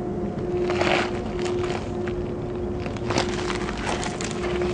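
Steady outdoor noise with a constant low hum, and a few short crunching rustles about a second in and again around three seconds in.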